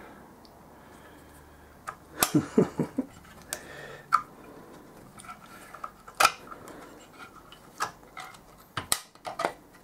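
Steel gearbox parts clinking and tapping against the aluminium engine case as a gear shaft and spring-loaded selector levers are fitted by hand. The clinks are light and scattered, with a small cluster about two seconds in and a few more near the end.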